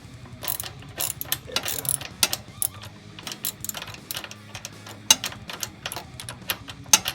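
Ratchet tie-down strap being cranked tight to hold a motorcycle steady, its pawl clicking in quick irregular runs of sharp clicks.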